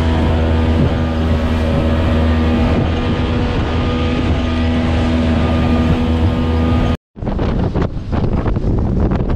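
Outboard motor running steadily at speed on a small open boat crossing rough water, with spray and wind noise. About seven seconds in the sound cuts abruptly to gusty wind buffeting the microphone.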